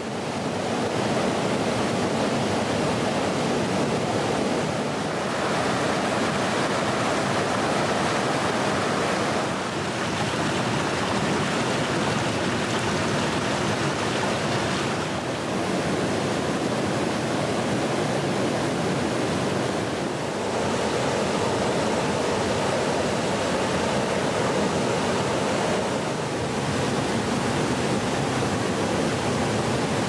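Mountain stream rushing over boulders and small cascades: a steady rush of water that fades in at the start and shifts slightly in tone about every five seconds.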